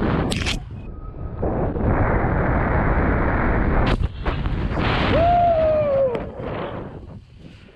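Snowboard riding through deep powder, with a loud rush of snow spray and wind on the helmet camera's microphone. A sharp knock about four seconds in comes as the board lands a cliff drop into a cloud of snow. A short falling tone follows about a second later.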